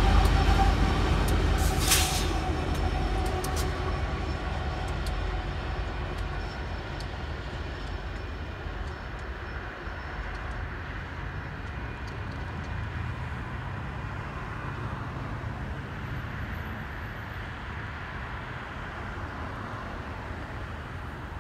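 Trailing pair of Union Pacific diesel locomotives rumbling past and fading into the distance, with one sharp metallic clank about two seconds in. After about eight seconds only a low, steady rumble remains.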